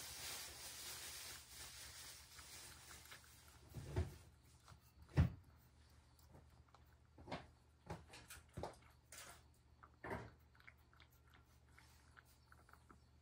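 A cat eating from a ceramic bowl on a tray: irregular small knocks and clicks as it eats, the loudest about four and five seconds in, after a soft hiss in the first two seconds.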